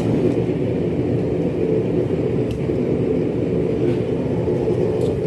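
Forge running with a steady low rushing noise while a steel punch heats to cherry red for quenching.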